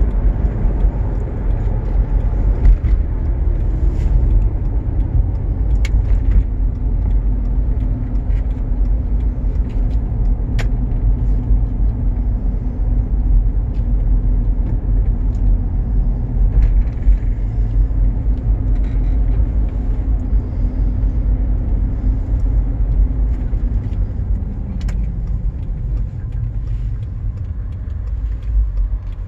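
Road noise inside the cabin of a Mitsubishi Pajero running on Goodyear Wrangler AT/SA+ 265/70R16 all-terrain tyres, heard as a steady low rumble of tyres on asphalt under the 3.5 V6 engine; the owner calls it very quiet. The tyres are about half worn after some 40,000 km. The rumble eases off over the last few seconds as the car slows.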